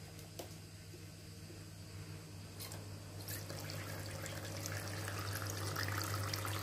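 Battery-powered toy sink's faucet running: a low steady hum under water trickling into the plastic basin, the trickle growing louder about three seconds in. The flow is weak, which is put down to a running-down battery.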